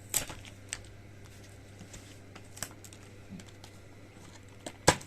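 A few sharp, scattered clicks and taps as the packaging of a small M.2 SSD is opened by hand, the loudest one just after the start and another just before the end.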